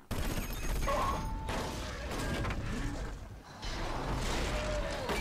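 Action-film soundtrack of armoured suits fighting: dense metallic mechanical clanking and crashing that starts suddenly, with a brief lull about three and a half seconds in.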